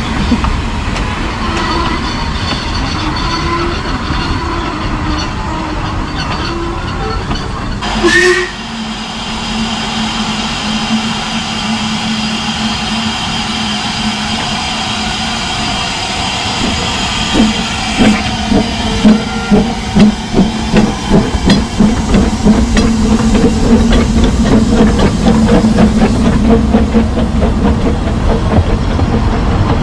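Ffestiniog Railway Double Fairlie narrow-gauge steam locomotive and its train: coaches rolling by, then a steady hiss of steam. From a little past halfway come the locomotive's exhaust beats, starting slow and quickening as it pulls away.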